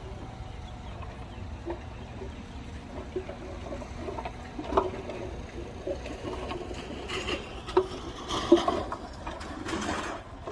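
Heavy machinery running with a steady low rumble, overlaid by irregular knocks and clunks that get busier over the last few seconds, with a few short noisy bursts.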